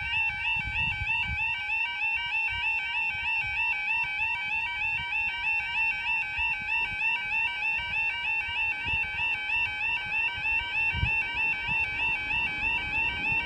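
UK level crossing audible warning alarm sounding its 'yodel': a continuous electronic warbling tone that repeats rapidly and steadily while the barriers are down and the lights flash, the sign that a train is due.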